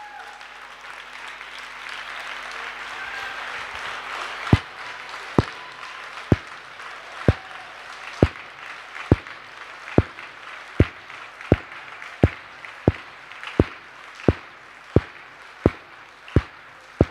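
Audience applause after a paso doble. About four seconds in it turns into loud clapping in unison, one beat a little under every second at first, speeding up steadily.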